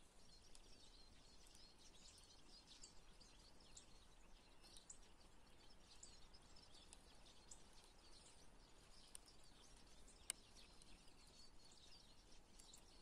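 Faint chirping and twittering of many small birds, continuous and irregular, with one sharp click about ten seconds in.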